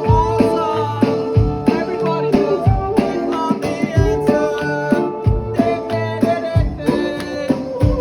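Music: a song with a singing voice over ringing handpan notes and a regular low beat.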